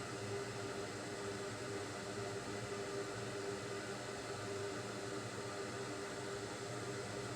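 Steady hiss of a small fan running, with a faint constant hum under it.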